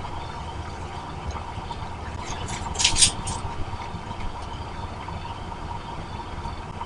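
Steady rain hissing on an outdoor wildlife-camera microphone, with a faint steady hum underneath. A short cluster of sharp crackles comes about three seconds in.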